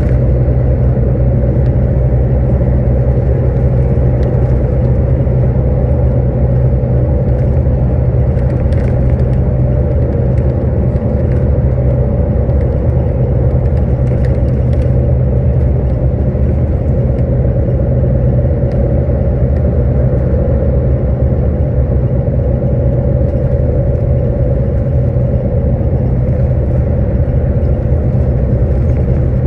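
Steady low rumble of engine and tyre noise heard from inside a vehicle driving along a highway, unchanging throughout.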